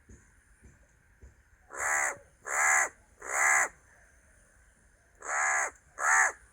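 Crow cawing five times: three caws in quick succession, a pause of about a second and a half, then two more.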